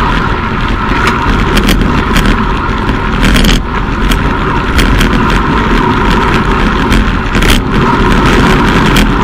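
Steady rush of wind buffeting a bike-mounted camera's microphone and tyre noise from a road bike at about 40 km/h, with a few brief knocks, the loudest about three and a half and seven and a half seconds in.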